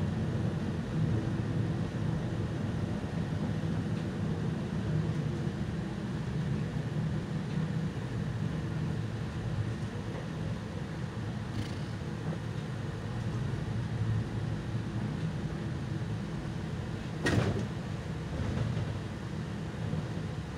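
Solaris Urbino 18 articulated city bus running, a steady low engine and drivetrain hum heard inside the passenger cabin. A single sharp knock comes about 17 seconds in.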